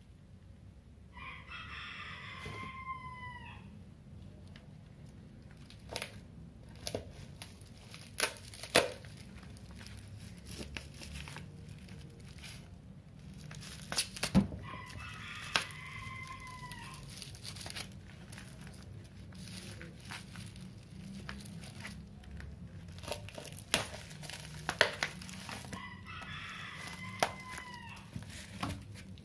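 A rooster crowing three times, about twelve seconds apart; each crow lasts about two seconds and drops in pitch at the end. Between and under the crows, plastic bubble-wrap packaging is being handled: crinkling with sharp clicks, the loudest of them louder than the crows.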